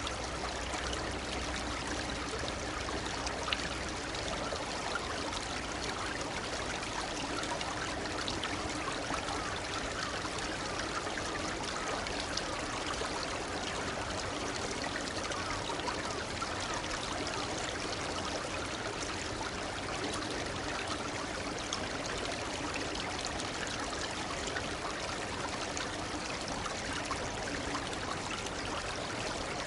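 A shallow stream babbling and trickling steadily over stones, a continuous bright splashing without breaks. A faint low hum sits under it for the first few seconds, then drops away.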